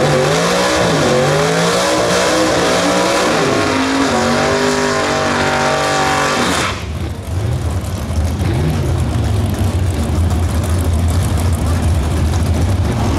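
Willys coupe gasser drag car's engine revving hard through a burnout with its rear tyres spinning, pitch climbing and falling, then cut off suddenly about seven seconds in. After that, the gassers' engines idle with a steady low rumble.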